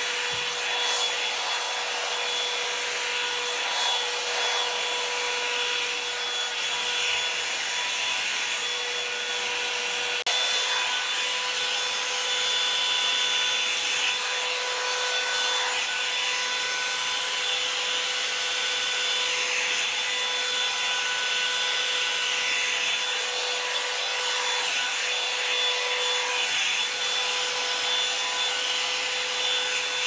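Revlon 2-in-1 hot-air brush dryer running steadily: rushing air over a steady motor whine as it is drawn through wet hair. A little louder from about ten seconds in.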